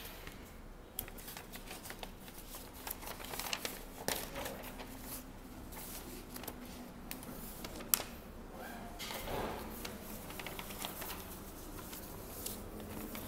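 Paper rustling and pages being turned and handled, with many small clicks and taps and one sharper click about eight seconds in.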